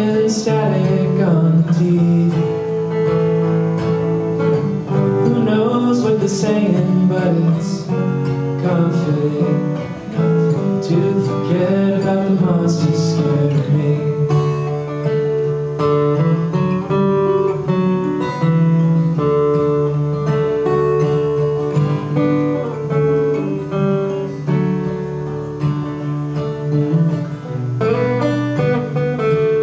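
Two steel-string acoustic guitars strummed and picked together under a man's singing voice, a slow folk song performed live.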